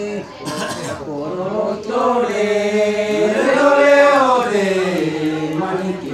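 Several men singing a traditional Manggarai song (dere) unaccompanied, in a chant-like style. A held note breaks off with a short breath, then the voices swell and rise together to a peak about four seconds in and settle onto a long, low held note.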